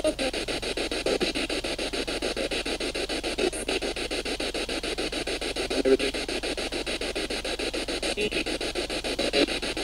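Ghost box (spirit box) radio scanner sweeping rapidly through stations: a steady, rapid, even chopping of static and broken radio fragments. Right at the start there is a short voice-like fragment that the investigator takes for a female voice.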